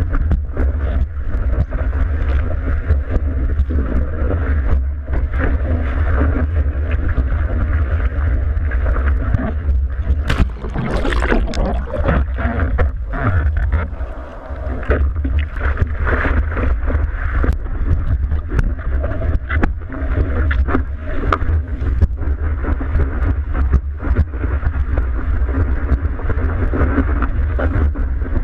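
Surf water rushing and splashing around a surfboard, heard through a board-mounted GoPro in its waterproof housing, with a heavy low rumble of water and wind on the housing. A burst of splashing about ten seconds in.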